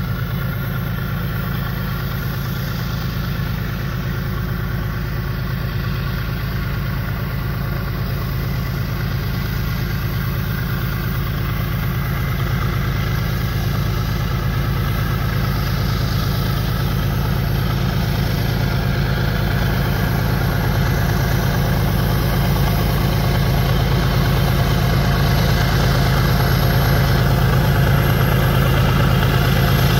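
The diesel engine of a GE ES44ACi diesel-electric locomotive running steadily as the train approaches, growing slowly louder.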